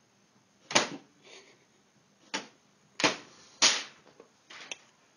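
A run of sharp mechanical clacks and knocks from a multifunction inkjet printer, four loud ones spread over about three seconds, then a few lighter taps near the end.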